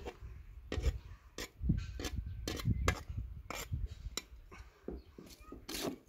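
Cooking utensils handled at a metal pot of cooked rice: about a dozen irregular knocks, clicks and scrapes, such as a metal ladle against the pot.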